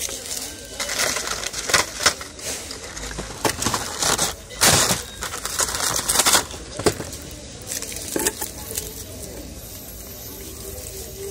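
Clear plastic gift packaging crinkling and rustling as it is handled close to the microphone, in irregular bursts that are loudest about four to five seconds in, then softer handling noise.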